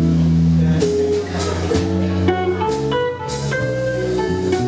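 Live jazz band playing an instrumental passage: guitar leading over bass and drums, with cymbal strokes through it.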